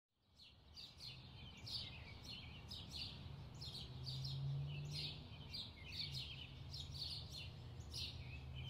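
Small birds chirping and singing in quick repeated short notes, fading in, over a low steady hum of outdoor background noise.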